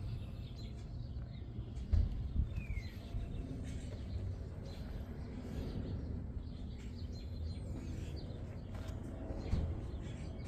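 Outdoor ambience: a steady low rumble with a short bird chirp and a couple of light knocks.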